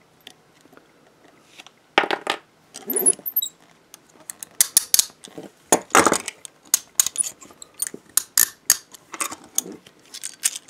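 Hiatt 1960 pattern steel handcuffs being handled: a string of sharp metallic clicks and clinks, starting about two seconds in and coming thick and fast through the second half.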